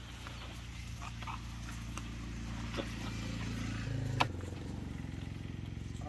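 A steady low motor hum that grows slightly louder, its pitch shifting about four seconds in, where a sharp click sounds. A few fainter ticks sound as well.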